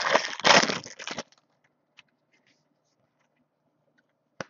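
Trading-card pack wrapper crinkling and tearing as it is cut and pulled open, lasting about a second. A single short click comes near the end.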